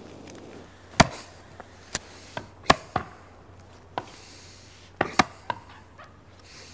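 An axe chopping into a tree trunk: a string of sharp, irregular strikes starting about a second in, the first one the loudest.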